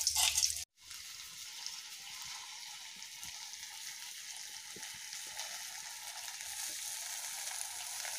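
Stuffed okra sizzling in hot oil in an iron kadhai covered with a steel plate: a steady frying hiss with a few faint pops, after a brief silent break under a second in.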